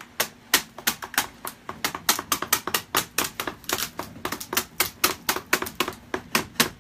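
Rapid, irregular light hammer taps, about six sharp knocks a second, driving a wedge into the seam of a fiberglass case mold to pop the shell free.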